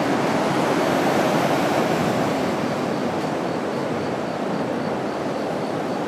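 Steady rushing of river water, the constant roar of a river running high after a typhoon.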